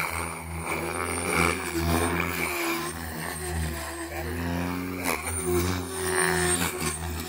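OMPHOBBY M4 Max electric RC helicopter in flight: a steady low rotor hum under a motor and gear whine that rises and falls in pitch as it manoeuvres.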